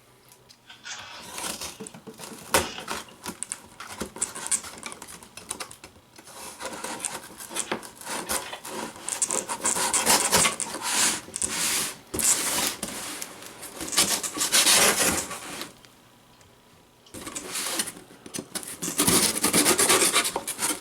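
Razor knife cutting open a cardboard shipping box: irregular scratching and scraping strokes through tape and cardboard, with a short pause about three-quarters of the way through.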